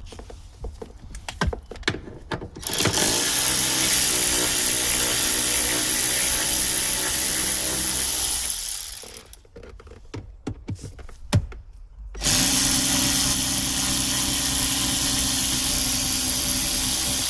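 Power driver running in two long steady bursts of about five to six seconds each, spinning out the Torx bolts that hold the car seat to the floor. Scattered clicks and taps of tool handling come between the bursts.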